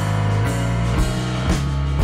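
Band music: held chords and bass notes with a drum kit marking a steady beat about twice a second.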